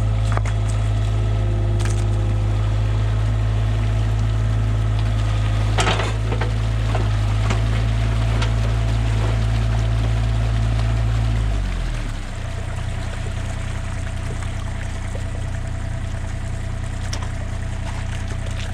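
Hitachi 35U mini excavator's diesel engine running at high speed while pulling, then dropping to a lower speed about twelve seconds in, with water pouring throughout.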